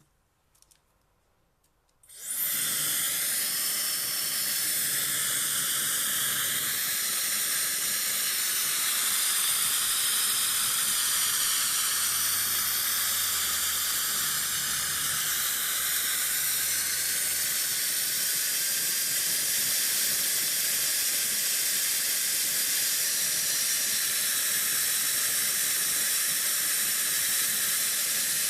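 Dyson Supersonic HD08 hair dryer switched on about two seconds in, then running steadily with a loud, high airflow hiss.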